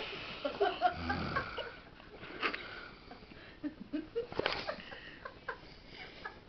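A sleeping man snoring, his breath breaking into short squeaky wheezes and nasal whistles over the first couple of seconds, then quieter, with a few soft clicks and sniffs.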